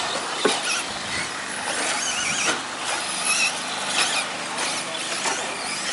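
Radio-controlled short course trucks racing on a dirt track: their motors and drivetrains make thin high-pitched whines that rise and fall as the trucks accelerate and slow down, over a steady rushing noise.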